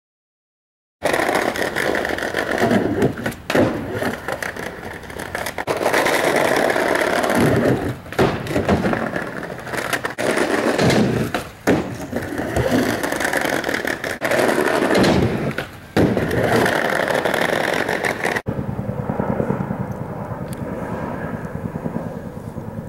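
Skateboard wheels rolling up and down a plywood mini ramp in repeated runs, with sharp clacks and knocks as the board pops and lands tricks. After a sudden cut about 18 seconds in, a tandem-rotor Chinook helicopter's rotors beat steadily.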